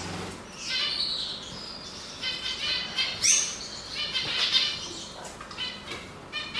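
Male canary singing: fast rolling trills and chirps, with a quick rising whistle about three seconds in. Sustained song like this is what marks a canary as male.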